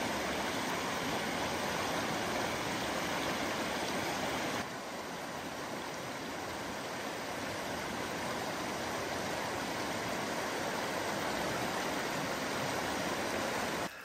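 Shallow river rapids rushing over a rocky riffle: a steady rush of moving water that steps down slightly in level about five seconds in.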